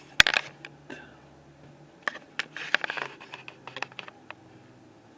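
A sharp click, then a run of small clicks and rattles for about two seconds, close to the microphone.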